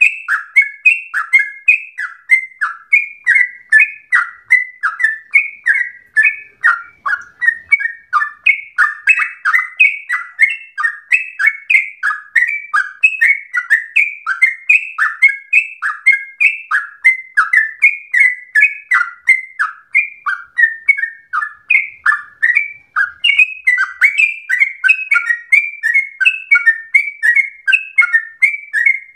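Yellow-vented bulbul (trucukan) singing a long, unbroken run of quick, bubbly notes, each a short downward slur, several a second.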